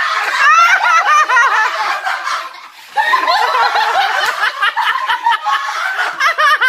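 People laughing and snickering in repeated bursts, with a short lull about two and a half seconds in.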